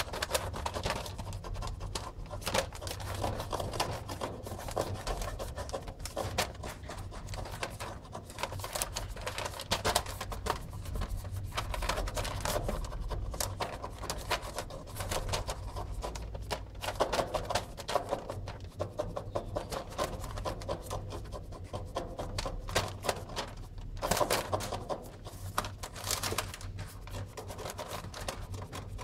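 Glossy magazine paper rustling and crinkling under a hand and a playing kitten's scrabbling paws and claws: a fast, irregular run of scratches and clicks, over a steady low hum.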